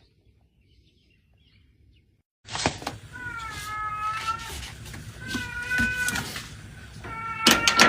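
Near silence for the first two seconds or so, then a domestic cat meowing three times, each meow about a second long.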